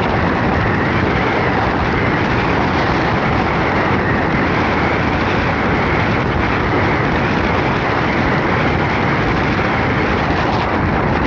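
Steady, loud rushing roar of high wind and storm noise around a moving vehicle, with wind buffeting the microphone.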